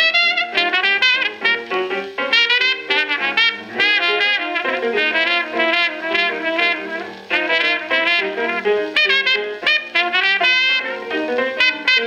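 A 1928 hot jazz duet of trumpet and piano played from a 78 rpm shellac record. Trumpet phrases with vibrato sit over busy piano chords and bass notes.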